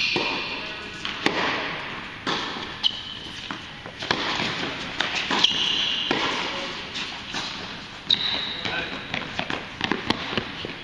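Tennis balls struck by rackets and bouncing on an indoor hard court during a doubles rally, a string of sharp pops and thuds echoing in a large hall. A few short high squeaks, typical of sneakers on the court, come through between shots.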